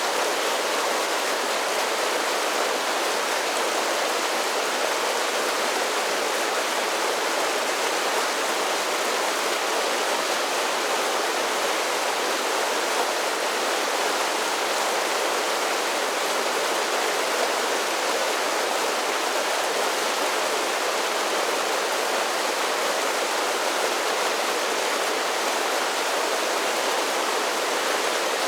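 A mountain creek pouring over a series of small waterfalls, a steady even rush of splashing water with no change.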